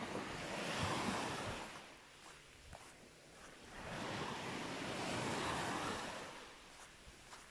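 Small waves breaking and washing up a sandy beach, two swells of surf rising and falling away.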